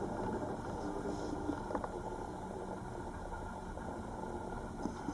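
Steady low mechanical hum, like an engine or motor running in the background, with a few faint small clicks of handling.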